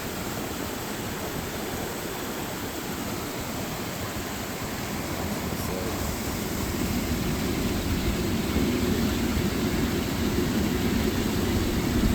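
Steady rush of a waterfall, growing louder about halfway through.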